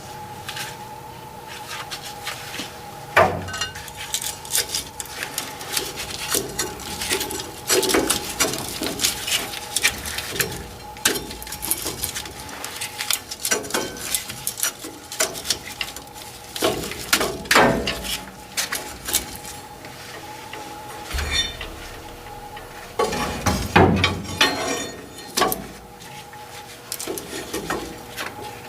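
Irregular metal clanks, clinks and knocks of hand tools and steel truck parts being handled and struck, with a steady faint hum underneath.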